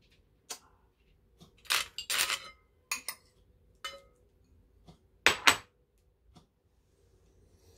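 A metal spoon clinking and scraping against ceramic bowls as cooked rice is scraped out of a rice bowl into a large bowl of soup. Scattered clinks and scrapes, the loudest a quick pair of sharp clinks about five seconds in.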